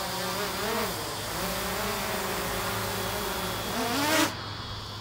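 DJI Mavic Air 2 quadcopter with Master Airscrew Stealth noise-reduction propellers hovering close by: a buzzing hum of several pitches that shift up and down. About four seconds in the pitch rises, then the motors cut off suddenly as the drone is caught by hand.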